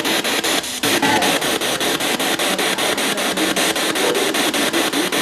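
Spirit box sweeping through radio stations: a steady hiss of static chopped by regular clicks, several a second, with short scraps of radio sound caught between them.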